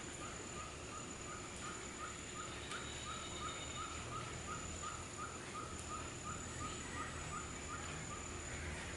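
Rainforest animal calling in a steady run of short, slightly rising chirps, about three a second, that fade out near the end, over a thin steady high-pitched tone.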